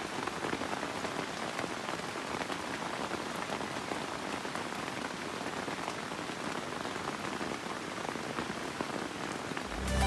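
Steady rain pattering on the leaves of a leaf-covered shelter and the surrounding foliage, a dense, even patter of drops.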